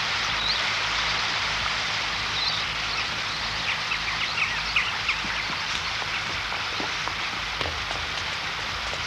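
Steady rushing noise of flowing river water, with faint short high chirps from birds scattered through the middle.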